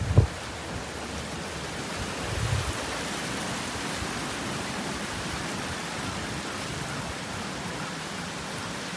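Shallow stream rushing over rocks, a steady hiss of running water. A short low thump right at the start is the loudest sound.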